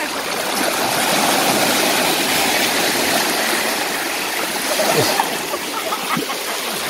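Small sea waves washing in over a pebble shore: a rushing wash that builds about a second in and eases off after a few seconds.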